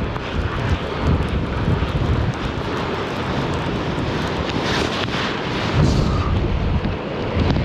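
Wind buffeting the microphone: a steady, gusting rumble with no clear pattern.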